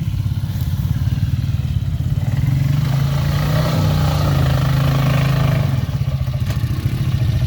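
An ATV engine running steadily under load while driving a trail, its revs rising a little about two and a half seconds in and easing briefly near the end.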